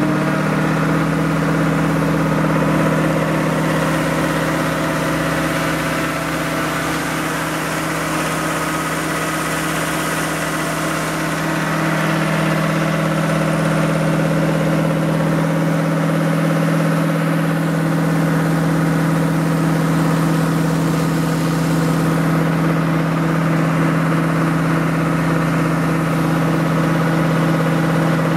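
An engine idling steadily: a constant, unchanging hum.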